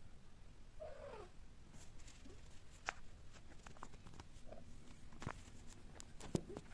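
A domestic cat gives one short call that falls in pitch about a second in, while mating, then a faint small call later, with a few sharp faint clicks and taps in the second half.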